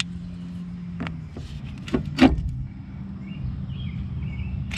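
A small electric power tool hums steadily on a socket while undoing the outer tie rod end nut, with a few sharp metallic knocks, the loudest about two seconds in.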